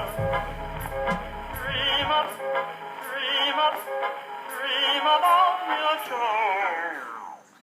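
Closing bars of a song: a lead melody with heavy vibrato, sung without words, over the accompaniment. The bass and beat drop out about two seconds in, and the last held note slides downward and fades out near the end.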